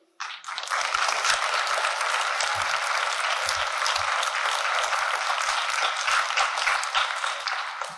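An audience applauding: many hands clapping together. It starts abruptly about half a second in, holds steady, and tapers off near the end.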